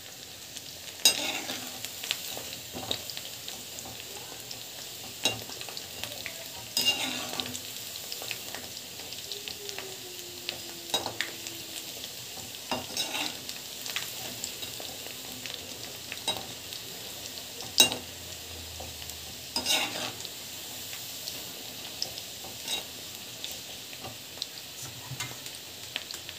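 Gulab jamun balls deep-frying in oil, a steady sizzle as they cook through. A steel slotted spoon stirring them clicks and scrapes against the kadai every few seconds.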